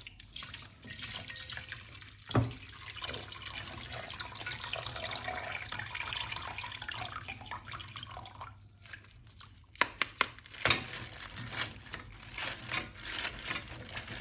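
Water running from a tap and splashing while a plastic action figure is rinsed under it. In the last third the water stops and there are several sharp knocks and clicks of the toy being handled.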